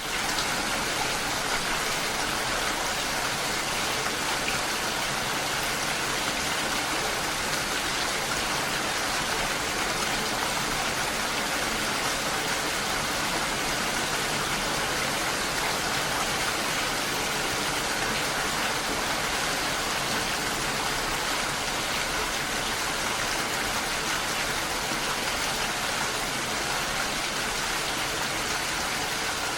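Steady rainfall: an even, continuous hiss of rain falling, with no single drops or thunder standing out.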